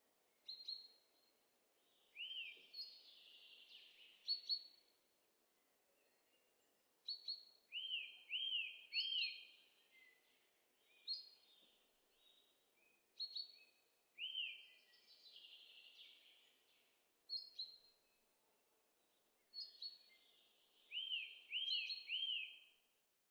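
A songbird singing in short phrases of high whistled notes every second or two, several phrases made of an arched note repeated three times in quick succession, over faint low outdoor background noise.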